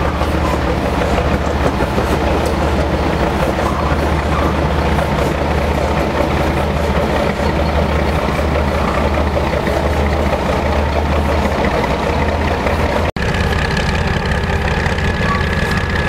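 Diesel switcher locomotive's engine running with a steady low drone as it moves slowly along the track.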